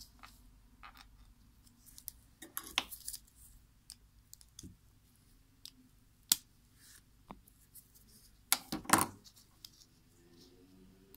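Small plastic clicks and scrapes from a webcam's housing being handled and worked on with gloved fingers and a small tool. There is one sharp click a little after six seconds in and a louder cluster of clicks and rubbing about nine seconds in.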